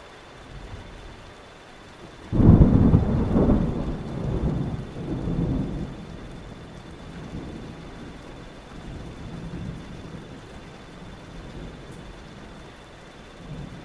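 A thunderclap breaks about two seconds in and rolls on for several seconds before easing into lower rumbling, over a steady hiss of rain.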